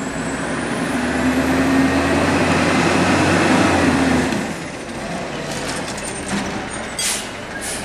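Peterbilt 320 automated side-loader garbage truck's diesel engine running as it pulls up, getting louder over about four seconds with a high whine that rises then falls, then easing off as the truck stops. A few short hisses follow near the end.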